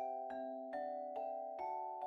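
Background music: a gentle tune of struck notes that each ring on, about two notes a second.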